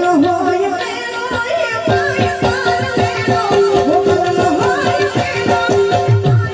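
Live Gujarati folk devotional music: a melody over steady held notes, with drum beats coming in about two seconds in.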